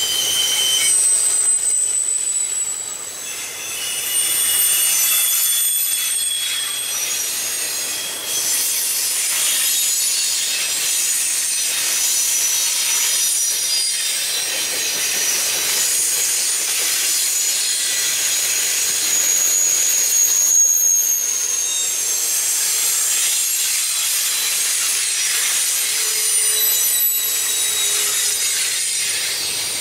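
Double-stack container well cars of an intermodal freight train rolling past, their steel wheels squealing against the rails in shifting high-pitched tones over the steady noise of the passing cars.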